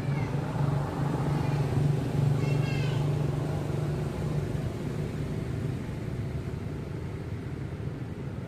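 A steady low engine-like hum, loudest in the first half. A short burst of high chirping calls comes about two and a half seconds in.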